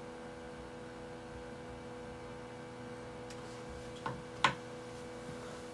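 iMac G5's cooling fans running steadily as it boots from the install DVD: a steady hum with several held tones. Two short clicks about four seconds in.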